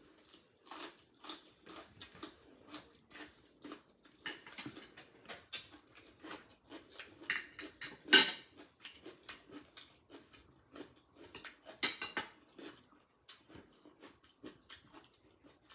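Eating sounds: irregular small clicks and smacks of chopsticks and clam shells with chewing, two louder clacks about eight and twelve seconds in.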